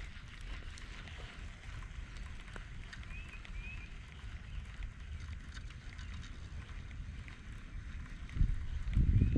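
Wind buffeting the microphone outdoors as a steady low rumble, with faint scattered ticks and a couple of short high chirps about three seconds in. The rumble grows louder near the end.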